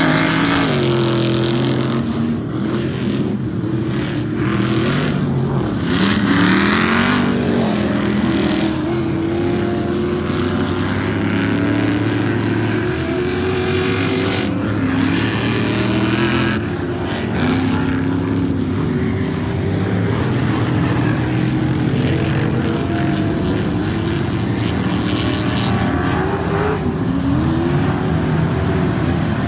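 Several Ultra4 off-road race car engines revving hard as the cars race over the dirt course, their pitches rising and falling over one another as they accelerate, ease off and pass.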